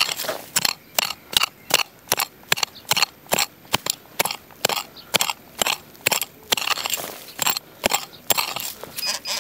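Hand digging tool chopping into dry, grassy soil, a crunching strike about two or three times a second in a steady rhythm.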